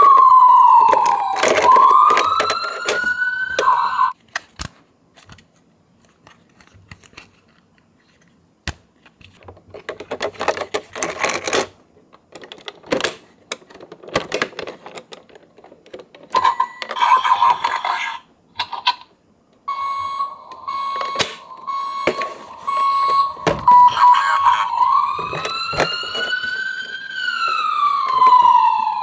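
Toy ambulance's electronic siren wailing in slow falling and rising sweeps, cutting off about four seconds in. Then scattered clicks and rattles, a steady electronic tone held for several seconds, and the wailing siren again near the end.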